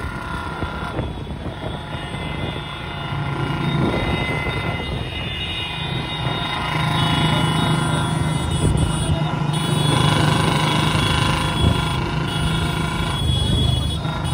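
Many motorcycle engines running together at road speed, with wind and road noise from riding along with them; the engine hum grows louder about halfway through.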